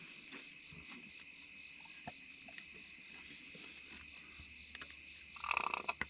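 Steady chorus of night insects such as crickets, heard as several unbroken high-pitched trilling bands. Near the end a short, louder noise cuts in for about half a second.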